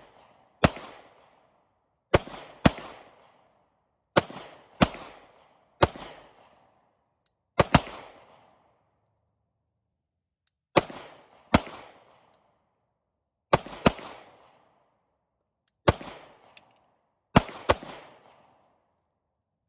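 Glock 27 subcompact .40 S&W pistol firing about fourteen single shots at an uneven pace, several in quick pairs about half a second apart. Each sharp report trails off in a short echo, and the firing stops near the end.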